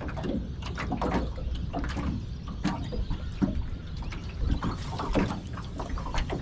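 Small waves slapping irregularly against the aluminium hull of a small open boat, over a steady low rumble of wind on the microphone.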